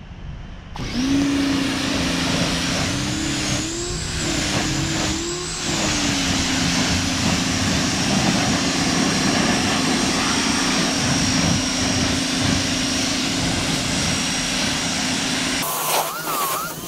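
Pressure washer running and spraying water onto a car: a steady motor hum that wavers in pitch for a few seconds near the start, over the hiss of the spray. It starts suddenly just after the beginning and the hum cuts off about a second before the end.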